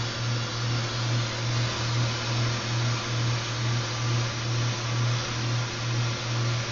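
Gas soldering torch flame burning steadily while it heats the flux-coated silver: a continuous rushing hiss over a low hum that pulses about two or three times a second.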